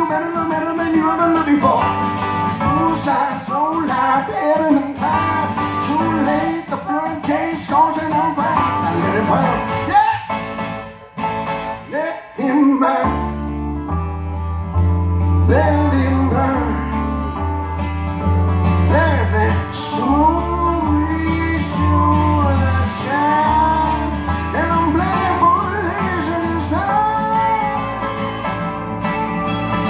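Live country band playing: acoustic guitar, pedal steel guitar and keyboard, with bending, gliding lead lines. After a brief drop about 11 seconds in, a deep bass part comes in and carries on until near the end.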